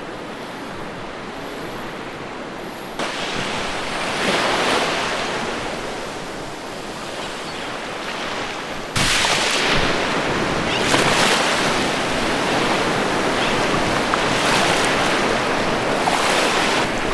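Small waves washing onto a sandy shore, surging up and falling back every few seconds, stepping up in level about three seconds in and again about nine seconds in.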